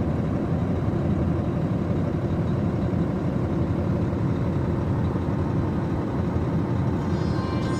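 Steady low rumbling noise at an even level, with music beginning faintly near the end.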